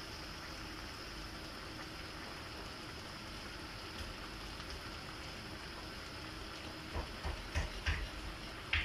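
Cabbage, cauliflower and carrots sizzling steadily in a frying pan on a gas stove, with a few light knocks near the end.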